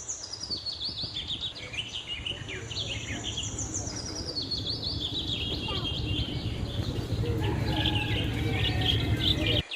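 Many small caged birds chirping and twittering at once, a dense chorus of short high calls over a steady low rumble.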